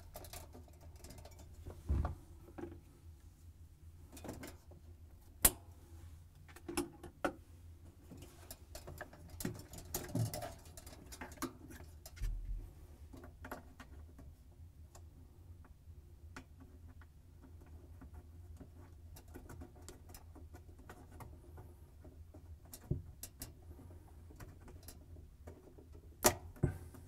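Scattered small clicks and taps of hands working plastic zip ties, wire harness and a sensor clip against a refrigerator's plastic liner and evaporator, a few sharper clicks standing out, over a faint steady hum.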